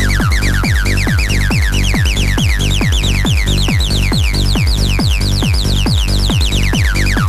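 Electronic background music with a steady kick-drum beat under a fast run of repeating synth notes that climb in pitch and then drop back near the end.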